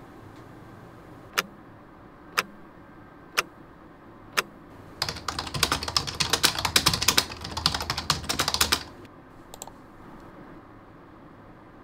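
Four sharp clicks about a second apart, then fast typing on a computer keyboard for about four seconds, followed by a couple of faint clicks.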